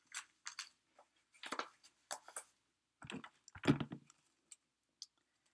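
Short scratchy rustles and rips, about six of them, from a neoprene swim cap and its Velcro chin strap being pulled on and fastened under the chin. The loudest come about three and a half seconds in.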